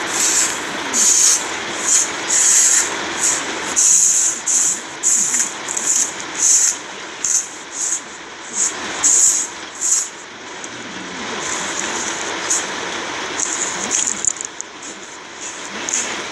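Iceberg slime being pressed and squeezed: its hardened top crust crackles and crunches in short bursts, about one or two a second, turning into a steadier crackle after about ten seconds.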